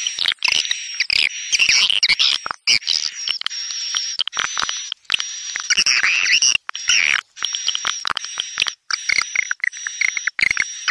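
Swiftlet lure call ('tarik senja', a dusk call for drawing swiftlets into a swiftlet house): dense, rapid chirping and twittering with a steady high-pitched tone running beneath. It is broken by many short, sudden gaps, as in an edited loop.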